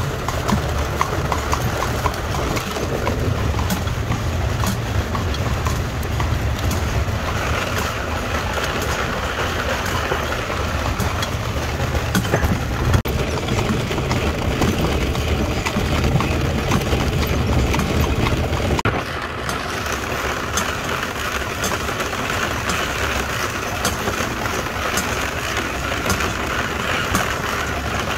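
A horse pulling a covered wagon at a walk: hooves clip-clopping on pavement over the continuous rumble of the wagon's wheels. About two-thirds of the way through this cuts off abruptly and gives way to a steadier outdoor rushing noise with less rumble.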